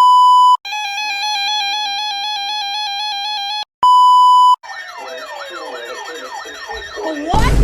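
A sequence of electronic alert tones. It opens with a steady high beep of about half a second, then a three-second buzzy multi-pitched tone, then the short beep again. Overlapping siren sweeps follow, rising and falling about twice a second. Near the end comes a sudden loud rising sweep with a deep rumble.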